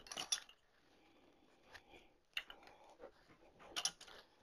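Floral pick machine clicking as it presses a metal pick onto a bundle of three cut fern stems: a few light metallic clicks, the sharpest near the end.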